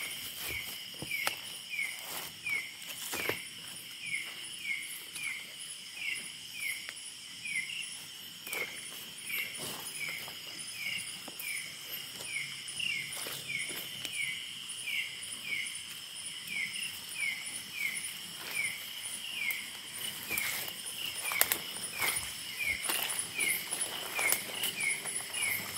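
Night insect chorus: steady high-pitched trilling of crickets, with a short falling chirp repeating about twice a second. Footsteps rustle through grass and undergrowth.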